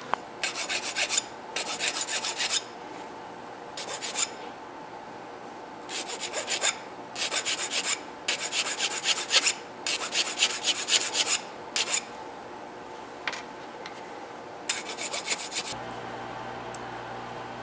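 Small file rasping in short strokes on the cut end of a plastic female header-pin strip. The strokes come in about nine bursts, from a fraction of a second to a second and a half long, with pauses between them.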